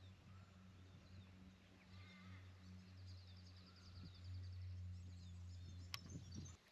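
Faint birdsong: scattered short chirps and a quick high trill. Under it runs a low steady hum that cuts off near the end, with a single sharp click just before.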